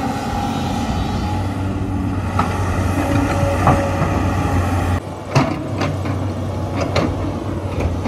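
Diesel engine of a Tata Hitachi 210 excavator running steadily as it digs and dumps fly ash. About five seconds in, the sound briefly drops, then a few sharp knocks come over the engine.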